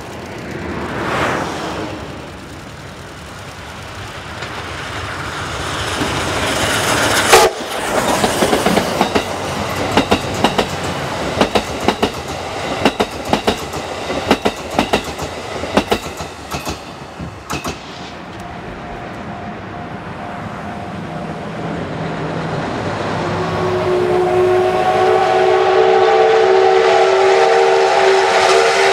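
A steam train passing: D51 200 steam locomotive's exhaust building up, then the wheels clicking steadily over rail joints as the coaches go by for about ten seconds. From about two-thirds of the way in, a steam whistle sounds, a steady multi-note tone growing louder.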